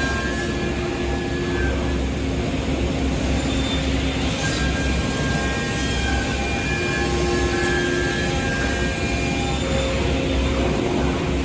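CNC machining center running, a steady mechanical drone with a strong low hum and several steady tones that come and go as it works.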